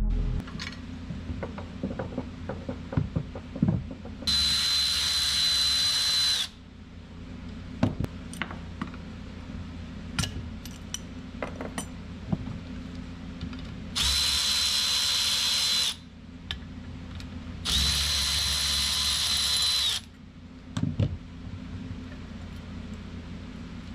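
A cordless power tool runs with a steady high whine in three bursts of about two seconds each, backing fittings off a turbocharger. Between the bursts come clinks and knocks of metal tools and parts on the workbench.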